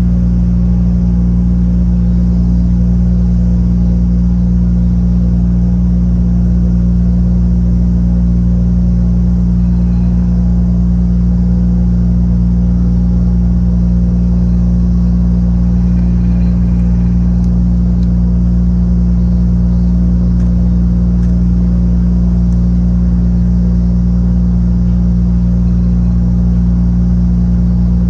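A ferry's diesel engines running steadily, a deep, even drone with several steady low tones, as the ship moves slowly into harbour.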